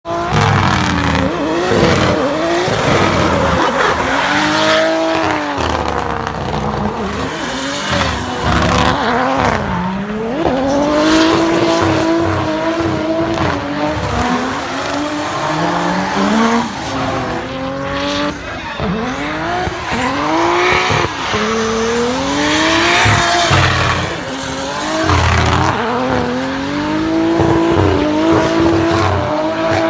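Nissan Silvia S15 drift car with a swapped-in RB25 straight-six, run hard through a drift: the engine note climbs and drops over and over as the throttle is worked, with tyres squealing under it.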